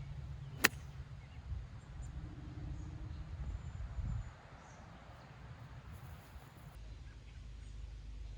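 A single sharp click a little after the start, over a steady low rumble of wind on the microphone.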